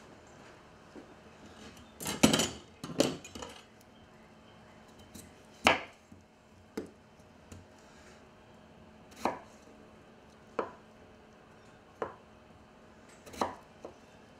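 Knife cutting peeled raw potatoes on a wooden cutting board. A cluster of louder knocks and clatter about two seconds in, then single knocks of the blade reaching the board, one every second or so.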